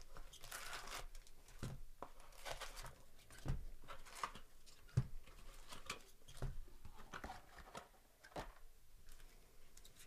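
Foil trading-card packs of 2024 Topps Series 1 baseball being torn open and crinkled by hand in irregular rustles, with a few soft knocks as packs are set down, the loudest about five seconds in.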